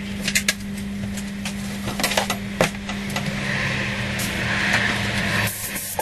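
Compressed air hissing in waves over a steady hum, with scattered sharp clicks; the hiss cuts off about five and a half seconds in.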